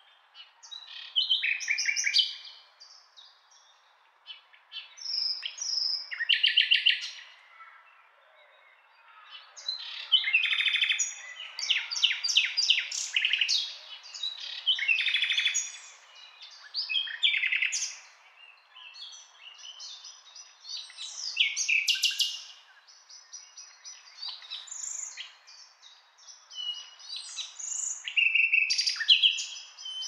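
Nightingale singing: a series of varied phrases, many made of fast repeated notes and trills, each a second or two long with short pauses between.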